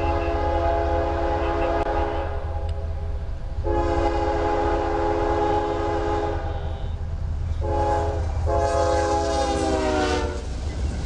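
Diesel freight locomotive's multi-chime air horn sounding the grade-crossing signal, long, long, short, long, over the low rumble of the train. The last long blast drops in pitch as the locomotive passes close by.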